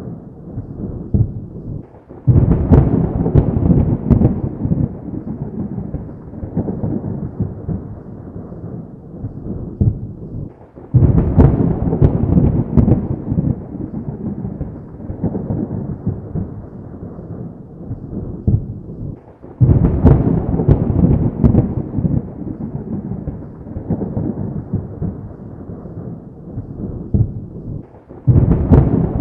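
Thunder: four sudden claps of thunder at even spacing, about every eight and a half seconds. Each opens with sharp crackles and rolls on as a long low rumble that fades before the next.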